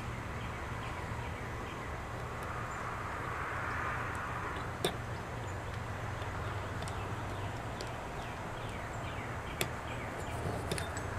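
Steady outdoor background noise with a low hum, broken by two sharp small metal clicks, about five and ten seconds in, as a steel pick seats the trigger spring into its notch on a Martini-Henry rifle's trigger.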